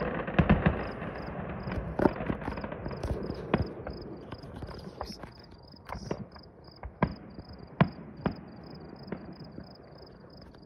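Crickets chirping steadily at a high pitch, with irregular sharp pops and bangs of distant fireworks. A rumble at the start dies away over the first few seconds.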